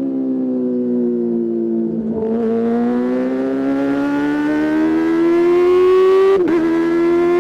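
Kawasaki ZX-25R's 250cc inline four-cylinder engine running through a DX Generation Pro Race aftermarket exhaust. Its note falls for about two seconds, breaks briefly, then climbs steadily in pitch, with another short break about six and a half seconds in.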